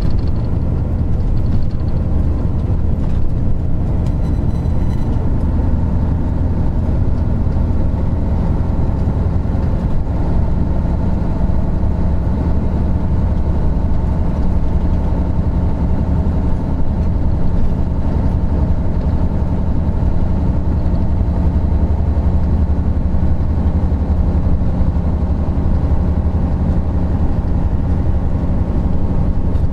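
Isuzu Gala III coach (KC-LV782R1) under way, its 12PE1 V12 diesel engine running at a steady pitch.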